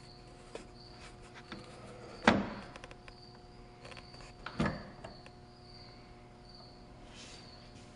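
Wooden gearwork and impulse mechanism of a weight-driven wooden kinetic sculpture running: two loud wooden clacks a little over two seconds apart, with lighter clicks between them. Under them a faint high chirp repeats about twice a second.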